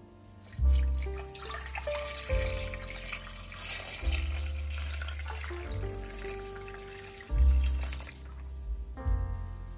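Water pouring from a jug into a stainless steel pot over two beetroots, splashing as the pot fills; the pour starts about a second in and tails off near the end. Background piano music plays throughout.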